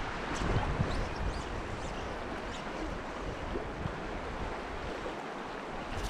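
Shallow, fast mountain trout stream rushing steadily over a rocky riffle.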